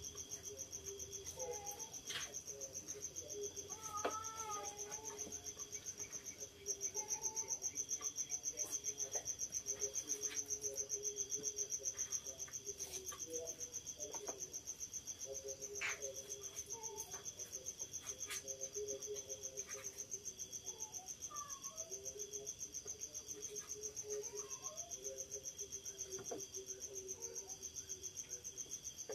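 Crickets trilling steadily: a fast, high-pitched trill that gets louder about six seconds in, with quieter, lower calls coming and going underneath.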